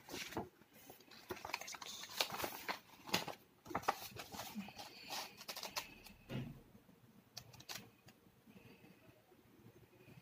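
Paper rustling and handling noise as a large project book is swung round, its pages shift, and it is lifted up: irregular rustles and light knocks that die down after about eight seconds.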